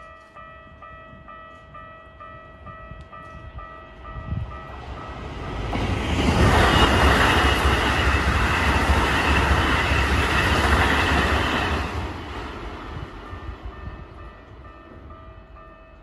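Japanese level-crossing alarm bell dinging in a steady repeating pattern while a Keikyu Line electric train passes through the crossing. The train's rumble and wheel noise build from about four seconds in, are loudest for about six seconds, and fade away by about thirteen seconds. The bell keeps ringing under the train noise and on after it.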